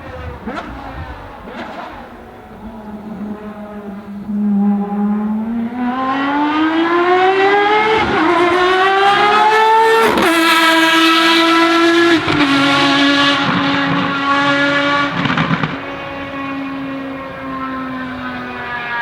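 Ferrari FXX Evoluzione's V12 racing engine on track, accelerating hard with its pitch climbing steadily, then upshifting with sharp drops in pitch about ten and twelve seconds in and running on at a steady note. A few sharp cracks come in the first two seconds.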